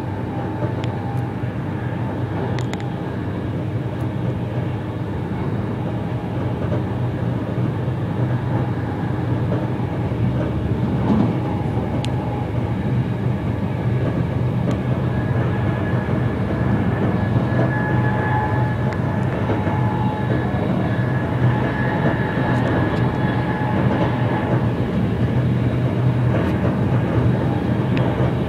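Steady rumble of a train running along the track, heard from inside the carriage, with a few light clicks and a faint high tone that comes in partway through and fades again.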